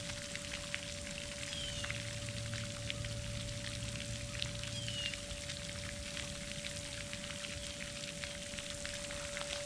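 Close, steady crackling and rustling of grass and small plants being picked through by hand, with a thin steady hum. Two brief high falling chirps come about one and a half and four and a half seconds in.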